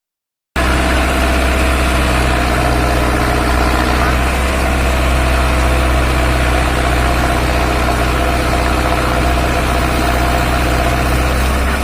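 Backhoe loader's diesel engine idling steadily, starting abruptly about half a second in.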